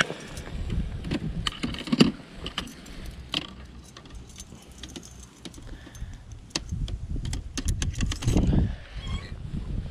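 Irregular light metallic clicks and jingling, like small metal objects being handled, over a low wind rumble on the microphone.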